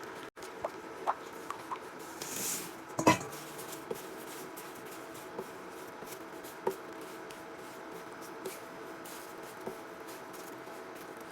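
Kitchenware being handled: scattered light clicks and taps, a short rustle, and one loud clink about three seconds in, over a steady low hum.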